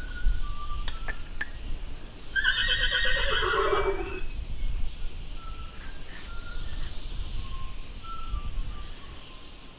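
A horse whinnying once, a quavering call about two seconds long that falls in pitch, starting about two and a half seconds in.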